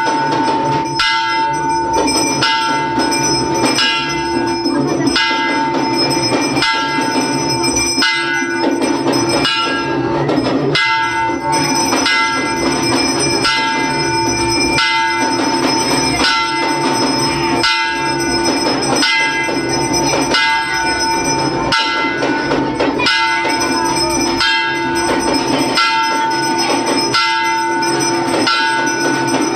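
Temple bells ringing continuously during puja, with a sustained metallic ring and a sharp regular beat about once a second.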